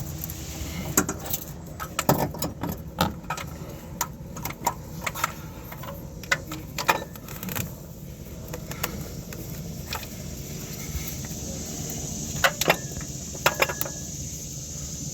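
Irregular sharp metallic clicks and clinks of hand tools and parts being handled while a car's AC compressor part is refitted, over a steady low hum.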